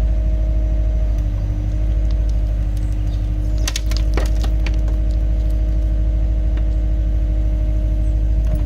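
Diesel engine of small site plant running steadily, with a steady pitched hum over the rumble and a few sharp cracks a little under halfway through, like wood or debris snapping.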